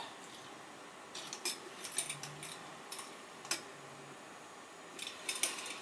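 Small metal lamp-socket parts clicking and rattling as they are handled and pried at, in scattered light clicks with a cluster near the end.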